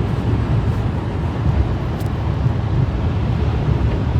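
Steady low rumble of a car driving on the road, with one faint click about two seconds in.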